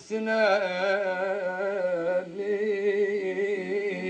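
A singer holding a long melismatic note in a Turkish folk song (türkü), the pitch wavering and turning for about two seconds before settling into a steadier held note.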